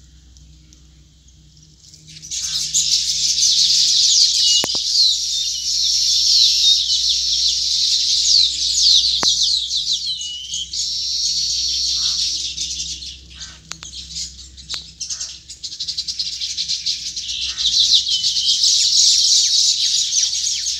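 Baya weaver colony chattering: a dense chorus of many quick, high chirps and trills that starts about two seconds in, thins out for a while past the middle, and swells again near the end.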